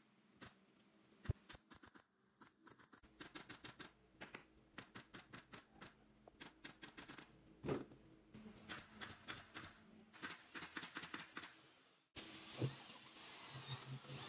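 Workshop assembly of a wooden sofa frame: runs of light, rapid clicks and taps at about four to five a second, with one sharp crack about a second in and a louder knock about halfway through. Near the end a cordless drill starts running.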